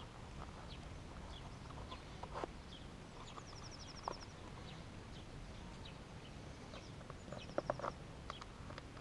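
A few small clicks and knocks, the loudest cluster near the end, as a knife is slid into its leather belt sheath. Two short high bird trills sound a few seconds apart.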